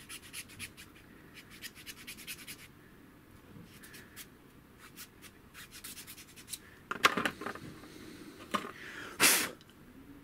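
Needle file rasping in the bolt hole of a small MDF part, easing a fit that is still tight in the middle. Quick short strokes for the first two or three seconds, then sparser ones, with two louder scrapes about seven and nine seconds in.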